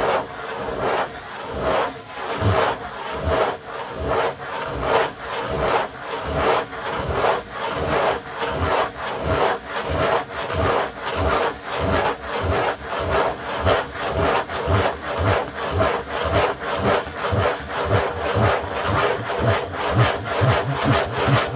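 Fingers scratching in circles on the lid of a corrugated cardboard Pizza Hut pizza box: a steady rhythmic rasping, about two strokes a second.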